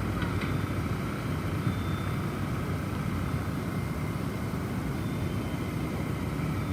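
Steady low rumble of snowstorm wind, with faint ringing wind chime tones now and then.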